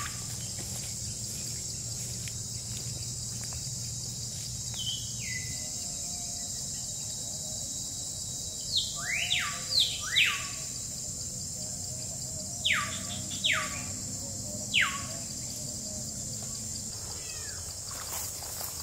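A bird giving a series of sharp downward-sweeping whistles, each falling steeply from high to mid pitch, about seven in quick succession in the middle of the stretch, over a steady high-pitched insect drone.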